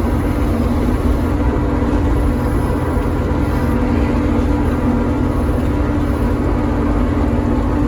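Farm machinery engines running steadily while chopping maize, a constant low drone with a steady hum over it.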